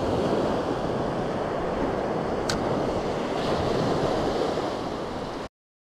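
Small waves breaking and washing up a sandy beach, with wind buffeting the microphone. A single faint click about two and a half seconds in, and the sound cuts off suddenly near the end.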